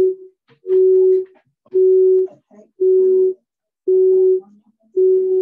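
Repeating electronic beep: one steady tone about half a second long, sounding about once a second, six times, in the on-off rhythm of a telephone busy signal. The beeping comes from a phone on the video call.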